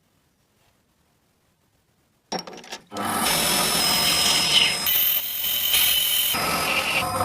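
Near silence for about two seconds, a few clicks, then a power tool starts and runs steadily for the rest of the time, with a high whine that shifts in pitch now and then.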